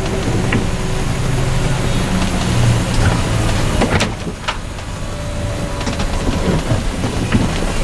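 Coach heard from inside its cab, driving in heavy rain: the engine's steady low drone under the hiss of tyres on the wet road and rain on the vehicle, with a few sharp knocks.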